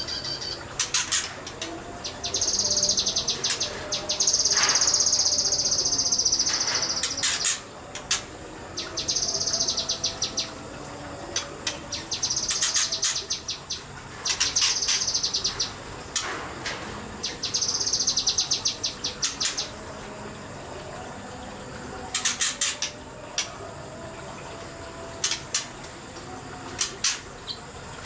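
Kinoi (leafbird) singing in repeated bursts of very fast, high trilled notes, the longest lasting about five seconds, with short sharp notes between the bursts.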